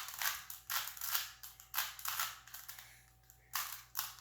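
Plastic Rubik's Cube layers being twisted in quick turns, each turn a short rasping click. The turns pause for over a second in the middle, then start again.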